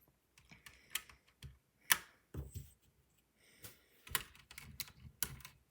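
Plastic keycaps on a Ducky mechanical keyboard clicking and snapping as they are pulled off the switches with a keycap puller and new ones are pressed on: a string of irregular sharp clicks, the loudest about two seconds in.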